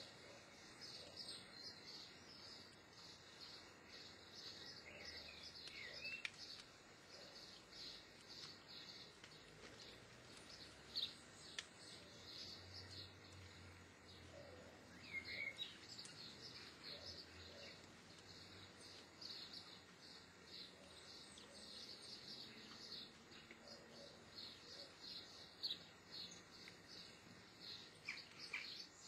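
Near silence with faint, high-pitched chirps repeating throughout and a few short gliding calls, over a light background hiss.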